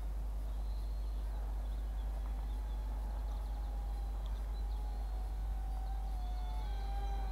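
Faint wavering drone of a small RC model plane's electric motors and propellers in flight, growing stronger with added overtones near the end, over a steady low wind rumble on the microphone. A few faint bird chirps.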